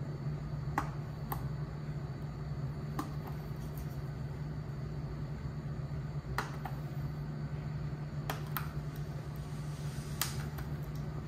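Scattered sharp clicks and ticks, about eight in all, as a plastic wrapping tool presses and tucks vinyl wrap film into the edges of a console trim piece, over a steady low hum.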